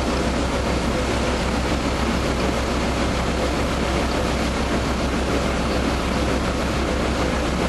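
Heavy diesel engine running steadily at a constant speed, a continuous low drone with a faint steady hum above it.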